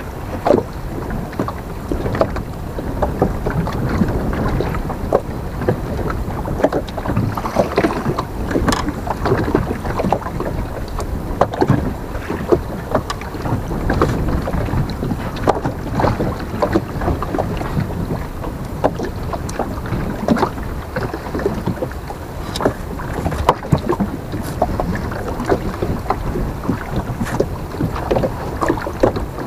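Small waves lapping and slapping against the hull of a small boat rocking on choppy water, with wind on the microphone: a steady wash broken by frequent small irregular knocks.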